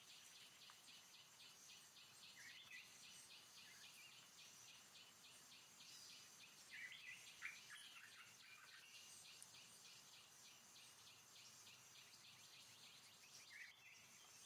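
Faint forest ambience: an insect's high, even pulsing chirp at about four to five pulses a second, with short chirps about two and a half seconds in, a cluster of them around seven to eight seconds, and one more near the end.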